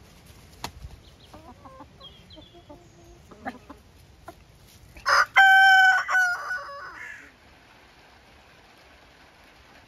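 Rooster crowing once, loud, about five seconds in and lasting about two seconds, with a few fainter short clucks from the hens before it.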